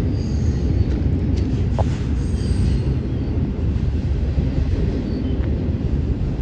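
Double-stack intermodal container freight train rolling past: a steady rumble of wheels on rails, with a few faint, brief high-pitched squeals.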